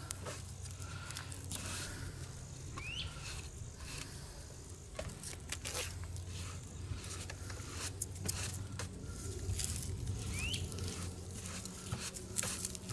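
Dry grass and leaf tinder smouldering on hot campfire ash, giving scattered faint crackles and ticks as it heats toward catching flame, over a steady low hum. Two short rising chirps, about three and ten seconds in.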